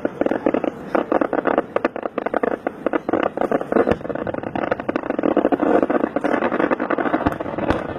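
Firecrackers going off in rapid, irregular succession, a dense crackling run of small bangs.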